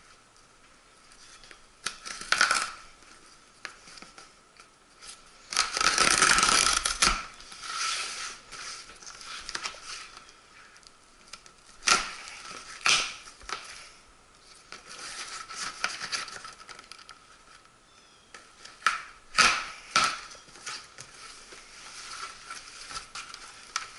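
A shipping box and its packing being opened by hand: scattered bursts of cardboard and packing-material handling noise, the longest and loudest about six seconds in, with several sharp knocks around twelve and twenty seconds in.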